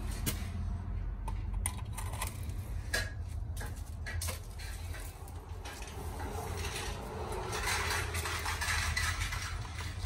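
Clicks and knocks of an electrical plug and cord being handled and pushed into a wall outlet, over a steady low hum. A rushing hiss builds up in the last few seconds.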